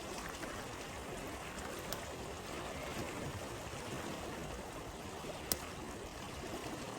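Steady rush of a flowing stream, with a few sharp crackles from a wood campfire; the loudest pop comes about five and a half seconds in.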